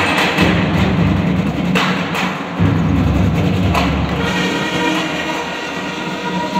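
Marching band playing: a few loud drum strikes over sustained low notes from the band.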